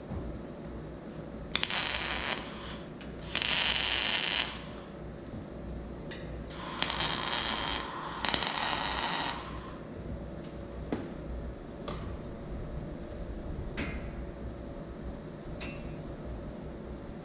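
Four short bursts of MIG welding arc crackle, each about a second long, in the first ten seconds: tack welds being laid on a steel tube frame. After that come a few sharp metallic clicks over a steady low hum.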